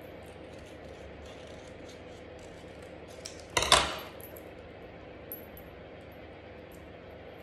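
Faint snips of scissors cutting red card, then a short clatter a little past halfway as the metal scissors are set down on the table.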